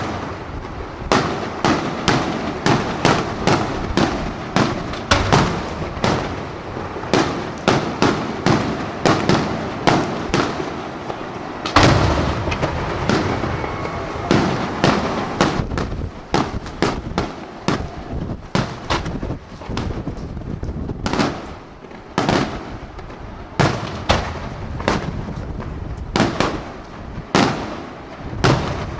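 Aerial fireworks display: a rapid run of sharp shell bursts, about one or two a second, over continuous crackling. A heavy, louder barrage comes about twelve seconds in, and the bangs thin out and space apart after that.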